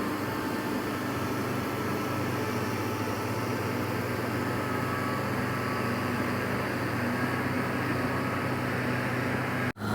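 Kubota M6040SU tractor's diesel engine running steadily under load while ploughing, an even engine hum with no change in speed. The sound cuts out for an instant near the end.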